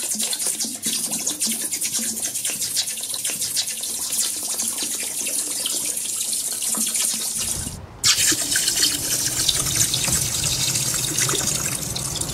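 Molten aluminium pouring into water, a steady hiss with fine crackling as the metal hits and quenches. It drops away briefly about eight seconds in, then the same hiss and crackle go on from a second pour into a steel bucket of water.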